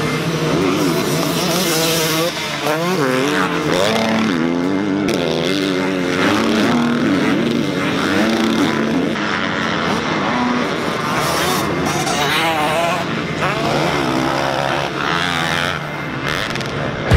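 Motocross motorcycle engines racing, their pitch rising and falling over and over as the throttle opens and closes.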